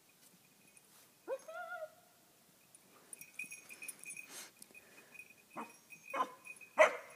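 Young puppy in human-remains detection training gives a short rising whine about a second in, then three short barks about half a second apart near the end, the last one the loudest.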